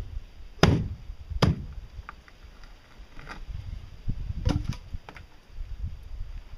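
Sharp knocks on a wooden strip being driven in as a wedge under the edge of a fiberglass pontoon. Two loud knocks come in the first second and a half, then several fainter ones a few seconds in.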